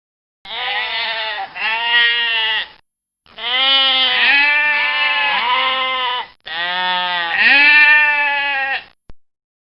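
Sheep bleating: a string of loud, wavering bleats in three runs, with short breaks about three and six seconds in.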